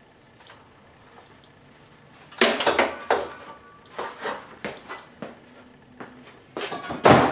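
Metal tools and fittings being handled and set down: a run of clanks, knocks and rattles that starts about two seconds in and is loudest near the end.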